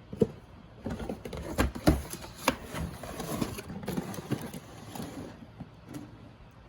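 Irregular clicks, knocks and rustling of packaging and plastic vacuum parts being handled, loudest about two seconds in and dying away after about five seconds.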